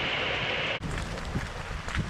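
A steady rushing hiss cuts off abruptly under a second in. After it, typhoon wind buffets the microphone in low, gusty rumbles, with a few faint clicks.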